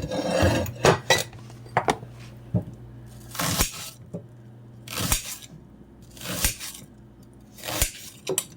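Kitchen clatter: dishes and utensils knocking and clinking on the counter, with four short swishing rustles about a second and a half apart.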